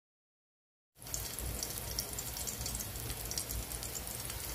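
Chopped garlic frying in a little canola oil in a hot pan: a steady sizzle with many fine crackles, starting suddenly about a second in after silence.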